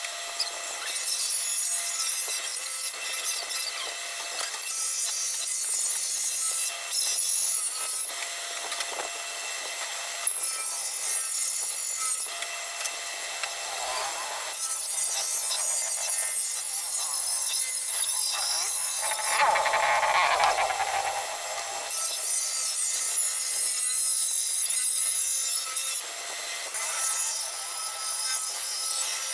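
Combination woodworking machine running steadily while thin wooden strips are fed across its jointer (surface planer) table. About seven passes of hissing cutting noise, each lasting one to four seconds, are heard over the motor's steady whine. The pass about two-thirds of the way through is the loudest and lowest.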